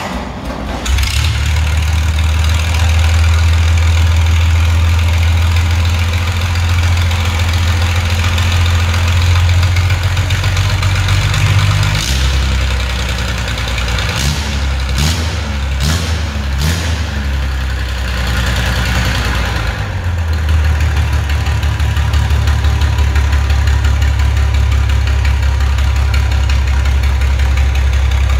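Old diesel engine catching and starting, then running with a steady low drone. From about 12 to 20 seconds in, its note changes and it gives several sharp blips as the throttle is worked, then it settles back to a steady idle.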